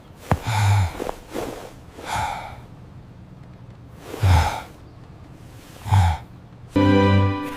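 A cartoon character's breathy huffs: four short ones, about a second and a half apart. Near the end comes a steady buzzing tone.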